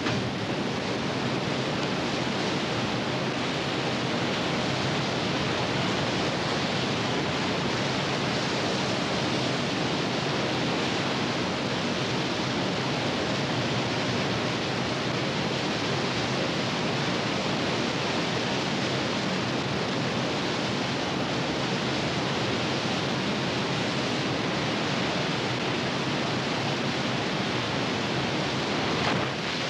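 Steady rush of water pouring through a canal weir.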